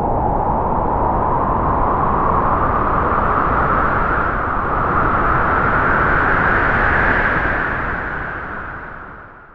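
A single gust of wind blowing and hissing, swelling and rising slightly in pitch for several seconds, then dying away near the end.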